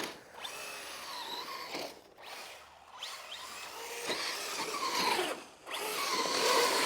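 Electric RC car's motor whining, rising and falling in pitch with the throttle, over tyre noise. It drops away briefly a few times and is loudest near the end.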